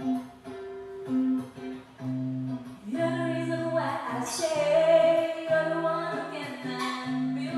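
A woman singing over a guitar-led karaoke accompaniment; the first few seconds are instrumental and her voice comes in about three seconds in.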